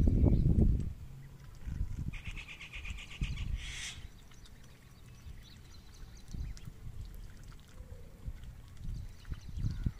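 Ducklings peeping in a short rapid series about two seconds in, ending in a brighter call near four seconds. A low rumble is loudest in the first second and fades to faint low knocks.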